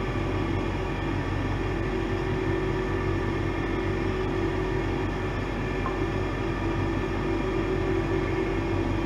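Steady machine hum in the room: a constant low drone with a few held tones above it, unchanging throughout.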